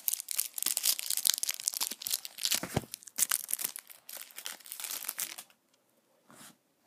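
Foil trading-card booster pack being torn and crinkled open by hand, a dense crackle that stops about five and a half seconds in.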